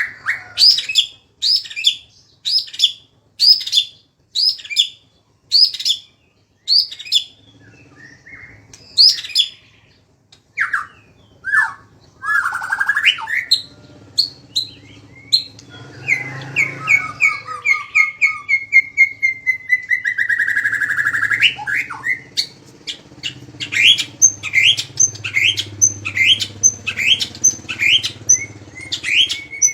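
Songbird calling loudly in sharp, sweeping notes: first a regular series of about ten identical notes, a little more than one a second, then a few varied phrases, then a long rapid trill that slides slowly down in pitch, and near the end a fast run of sharp notes, about two a second.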